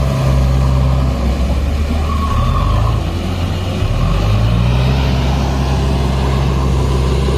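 Heavy diesel engine running steadily. Its revs drop about two seconds in and pick up again about four seconds in.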